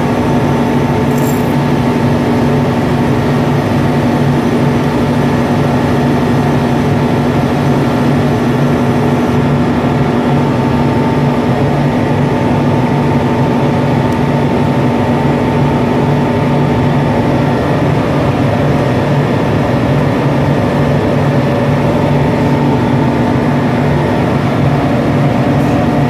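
Loud, steady machinery drone with a constant low hum that does not change.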